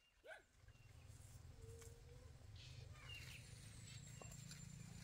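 Faint outdoor ambience: a few short chirping animal calls, likely birds, with brief high whistles, over a low steady rumble that sets in about half a second in.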